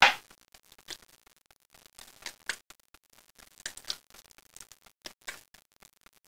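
Small kitchen knife cutting and scraping around a raw chicken drumstick bone against a cutting board: scattered faint clicks and scrapes, with one sharp knock right at the start.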